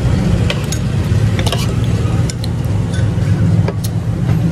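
Steady low rumble of a motor vehicle engine running close by, with a few sharp clicks of a metal spoon and fork against ceramic bowls.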